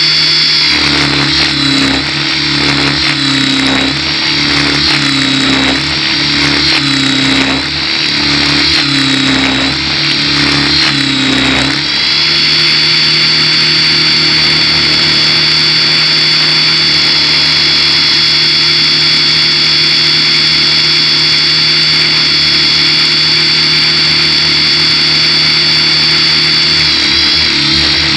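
Align T-Rex 600 Pro RC helicopter heard from a camera on its own airframe: a loud drive whine and rotor noise. For the first twelve seconds the pitch steps up and down about once a second, then it holds steady, wavering again near the end.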